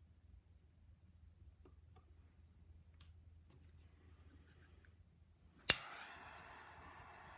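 A few faint ticks, then about five and a half seconds in a small butane torch snaps alight with one sharp ignition click and goes on hissing steadily.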